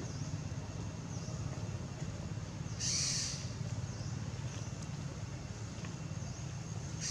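Outdoor ambience: a steady low hum throughout, with one short, hissy, high-pitched call or chirp about three seconds in.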